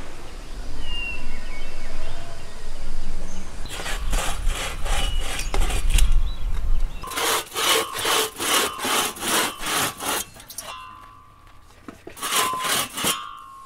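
Two-man hand saw cutting through a wooden board, starting about four seconds in with rasping back-and-forth strokes at about two and a half a second. The strokes pause briefly near the end, then start again.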